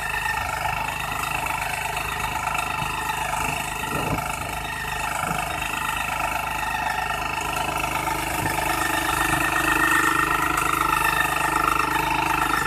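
Walk-behind power weeder's small engine running steadily as the machine tills along a furrow and earths up soil against the crop rows, getting a little louder over the last few seconds.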